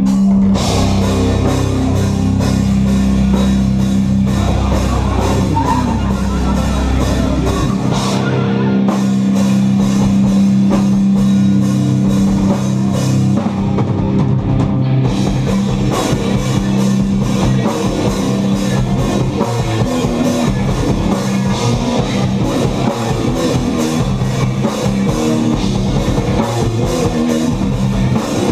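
A heavy rock band playing live and loud, with distorted guitars, bass and a drum kit. Low notes are held for the first several seconds, then give way to fast, pounding drumming and chugging riffs.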